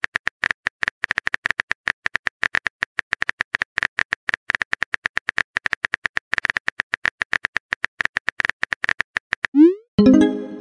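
Fast, uneven keyboard tap clicks of a phone texting app as a message is typed out, about ten a second. Near the end the clicks stop and a short rising swoosh is heard, then a burst of music.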